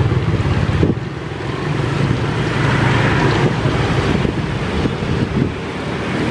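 Steady hiss and low rumble of a roadside frying stall: oil sizzling around fish balls in a pot, under street traffic and wind buffeting the microphone.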